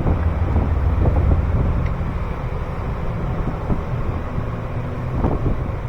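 Steady low wind rumble on the microphone, with a few faint clicks and taps of hands working on the engine's ignition coil connectors.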